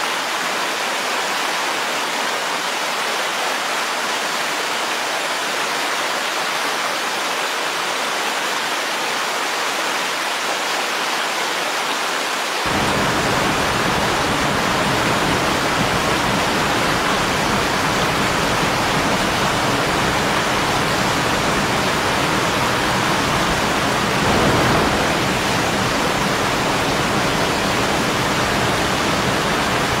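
Fast mountain stream water rushing over rocks in a steady, even roar. About twelve seconds in, the rush suddenly becomes deeper and a little louder, and it swells briefly later on.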